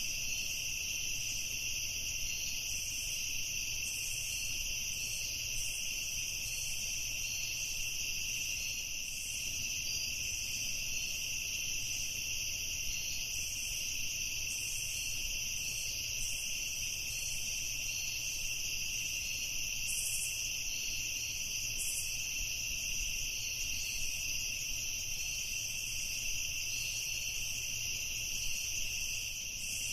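Evening chorus of crickets, a steady unbroken high trilling that does not change, over a faint low rumble.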